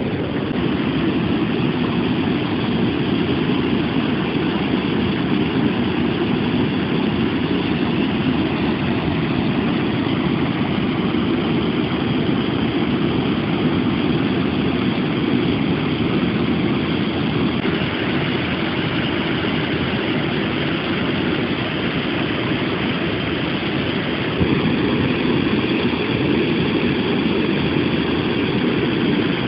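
Steady rushing noise of flowing river water, even and without distinct splashes, shifting slightly in level partway through.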